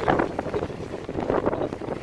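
Gusty wind buffeting the microphone, over sea water churning and washing between two hulls lying alongside each other.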